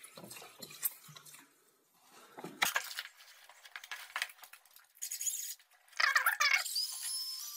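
Water glugging from a plastic bottle into a plastic bucket, then scattered knocks and rustling. Near the end a cordless drill with a paddle mixer starts in the tile grout, its motor whining and slowly rising in pitch.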